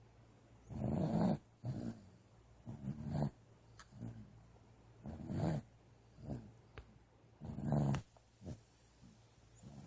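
Snoring in sleep, a snore on each breath, about four breaths in all. Each breath is a longer, louder snore followed by a shorter one, repeating about every two and a half seconds.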